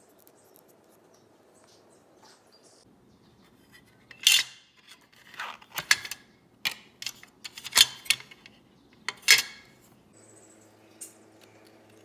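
Hard clear plastic cassette tape case being handled, giving a run of sharp clacks and clatters, about eight, starting about four seconds in and lasting some five seconds.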